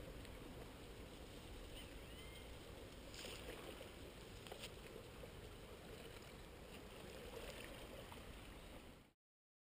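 Faint outdoor shoreline ambience: a steady low rumble and hiss with a couple of faint short chirps, cutting off abruptly about nine seconds in.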